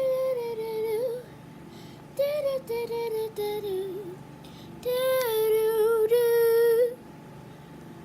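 A high, wordless voice singing or humming three short drawn-out phrases, with the pitch wavering and sliding on each. This is the mysterious sound being investigated.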